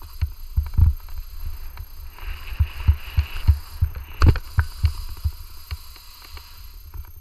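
Skis sliding over crusty spring snow, with a scraping hiss from about two seconds in that lasts a couple of seconds and one sharp knock just after it. Dull, irregular low thumps buffet the action camera's microphone throughout.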